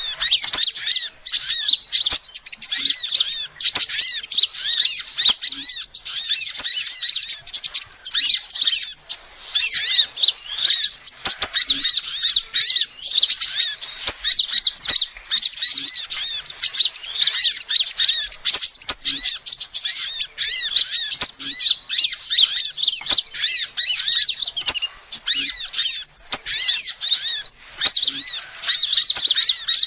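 Female sunbird calling: a fast, continuous stream of high-pitched chirps and twitters, broken by brief pauses.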